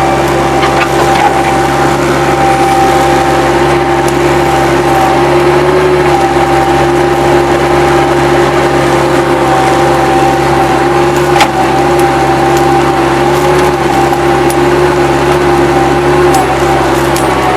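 Bobcat 763 skid-steer loader running steadily, its diesel engine drone carrying a steady whine, with a single sharp click about eleven seconds in.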